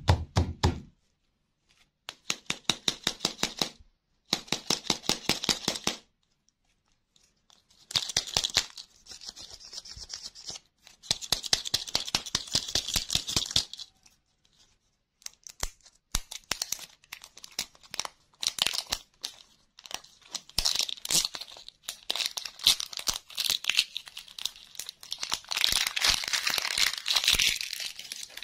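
Plastic film wrapper on a toy-surprise lollipop ball being handled and peeled off by hand. It starts with two runs of quick, even strokes on the wrapper. Then come long stretches of crinkling and tearing plastic, loudest near the end.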